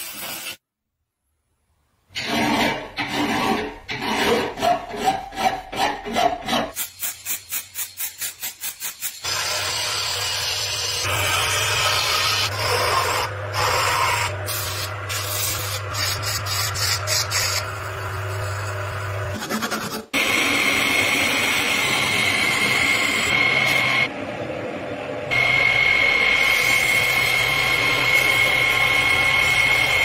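Rhythmic hand rubbing strokes that quicken, then a lathe running steadily with sandpaper held against the spinning wooden workpiece. Later a lathe runs with a steady high whine while sandpaper is pressed to the turning part, stopping briefly once.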